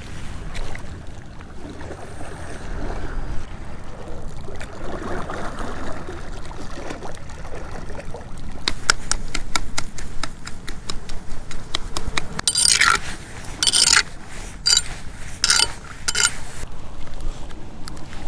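A chum ladle scraping and scooping wet chum: a run of quick sharp clicks from about halfway, then several short harsh scrapes. Before that, quieter handling of the bait.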